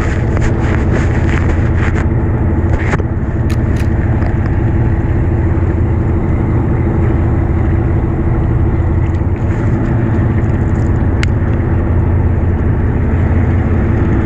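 Fishing boat's engine running steadily, a loud, even drone, with a few sharp clicks a few seconds in and again near the end.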